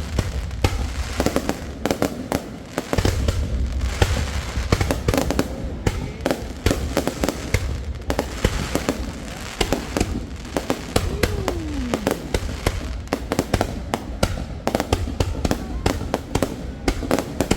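Fireworks going off in quick succession: dense crackling and popping bursts over deep rumbling booms, with a falling whistle near the middle.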